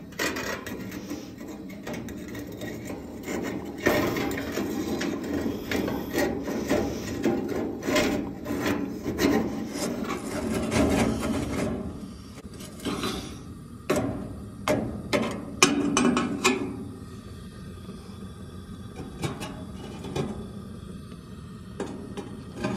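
Ceramic heater grates scraping and grinding against the gas heater's metal frame as they are pushed into place, followed about halfway through by several sharp knocks and clicks.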